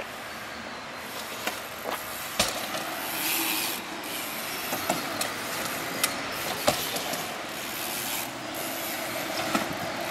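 Mountain bike rolling over skatepark asphalt and ramps: steady tyre noise with a ticking freewheel, broken by several sharp knocks as the wheels hit ramp edges and land.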